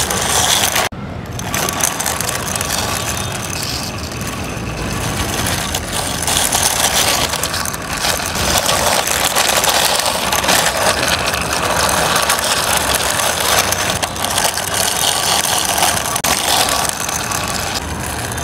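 Plastic wheels of a toy car rolling as it is pushed by hand along rough concrete: a continuous gritty rattle, with a brief break about a second in.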